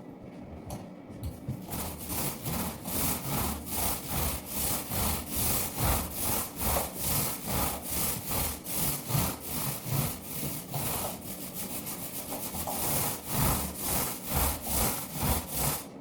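Paint roller rolled back and forth over a wall, a rhythmic rasping stroke about twice a second, easing off briefly two-thirds of the way through.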